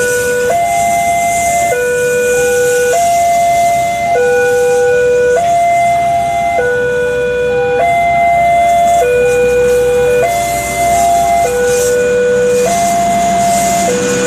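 Electronic railway level-crossing warning alarm repeating a pattern of tones that alternate between a lower and a higher note about every second, over the noise of a train rolling past.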